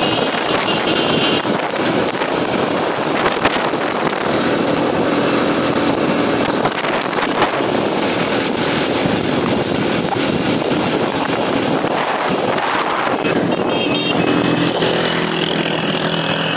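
Motorcycle riding along at speed, its engine running steadily under a loud, even rush of wind on the phone's microphone.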